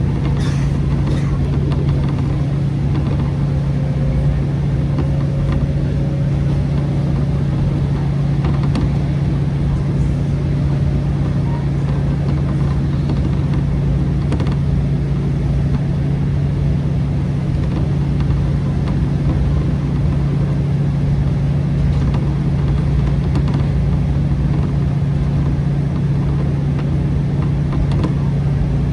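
JR Shikoku KiHa 40/47 diesel railcar running, heard on board: a steady low engine drone over the continuous running noise of the train, with a faint rising whine a few seconds in.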